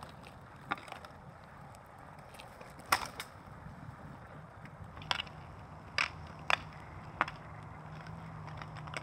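Roller skate wheels rolling on rough asphalt, with about seven sharp clacks of a hockey stick striking the ball and the pavement as the boy stickhandles.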